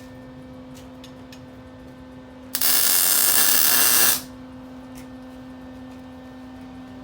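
A welding machine fires one loud burst of about a second and a half, starting and stopping abruptly, over a steady electrical hum.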